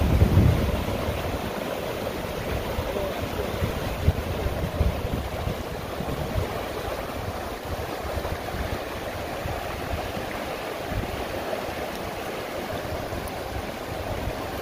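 Creek water flowing steadily.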